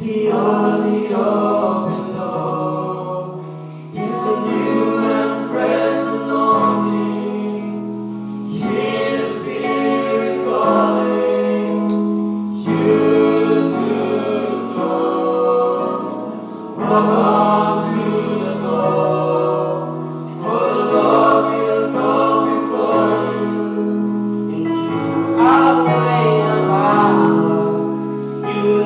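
Men's vocal group singing a gospel hymn together in harmony, several voices holding sustained notes and moving in phrases.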